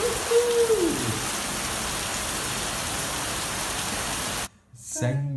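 Heavy rain pouring steadily, cutting off suddenly about four and a half seconds in. A short call that falls in pitch is heard in the first second.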